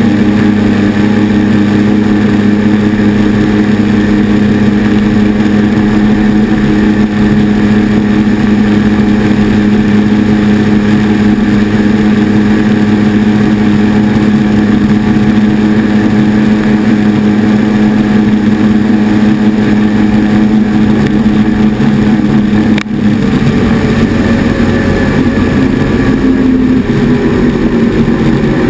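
Mercury outboard engine running at high, steady revs on a speedboat at speed, over the rush of wind and water spray. The sound dips briefly about three-quarters of the way through.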